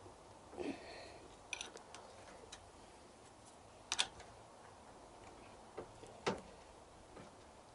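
A handful of separate sharp metallic clicks and taps of a spanner being worked on a motorcycle's fork yoke clamp bolts, the loudest about four seconds in.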